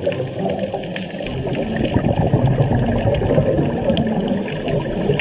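Underwater ambience recorded by a camera below the surface: a steady, muffled rush of water noise with a faint crackle.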